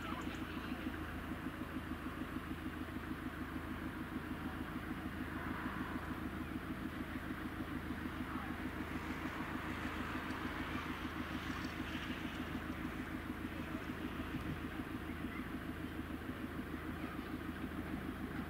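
Steady low engine hum with a fast, even pulsing, typical of an engine idling.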